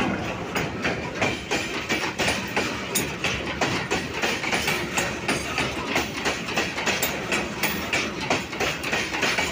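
Loaded coal hopper wagons of a goods train rolling past, their wheels clattering over the rail joints in a steady, repeating rhythm over a continuous rumble.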